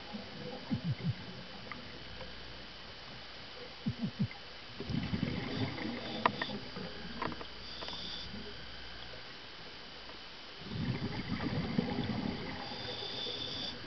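Scuba diver breathing through a regulator underwater: two long gurgling rushes of exhaled bubbles, with a short hiss of inhalation between them and another near the end. A few short low knocks come before the first exhalation.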